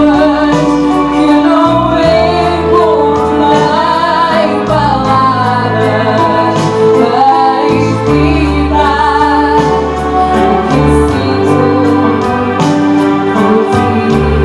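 A vocal duet singing a song over instrumental backing, with sustained low notes and a steady light beat.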